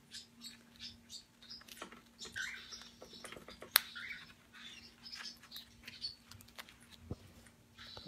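A white-capped pionus and a young cockatiel making short, soft chirps amid scattered small clicks and taps of beaks on a paper toy; one sharp click a little under four seconds in is the loudest sound.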